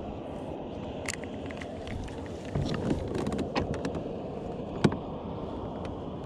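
Steady wind and water noise around a kayak, with a run of small clicks and knocks from a baitcasting rod and reel being worked, the sharpest single click about five seconds in.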